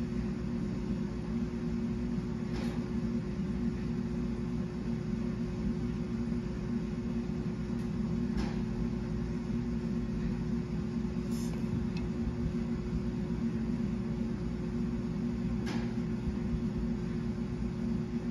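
A steady low mechanical hum with a constant tone, with four faint light ticks spread through it.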